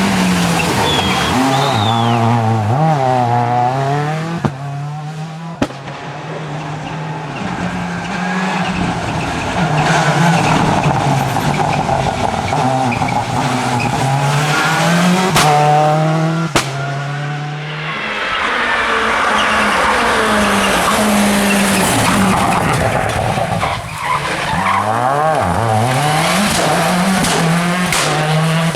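Seat Córdoba WRC rally car's turbocharged four-cylinder engine driven hard, its pitch climbing and dropping again and again as it accelerates through the gears and backs off, with a few sharp cracks along the way.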